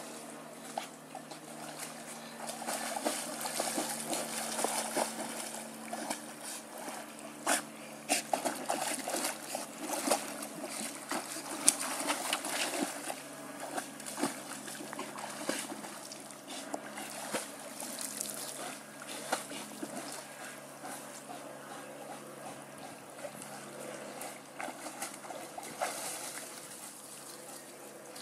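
German shepherd swimming and splashing in lake water, with irregular splashes and dripping water. The splashing is busiest through the middle and dies down over the last several seconds.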